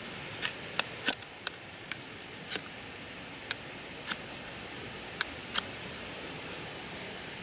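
Ferro rod fire starter being struck, about ten short, sharp scrapes at uneven intervals, throwing sparks onto a fire-lighting aid to light a campfire.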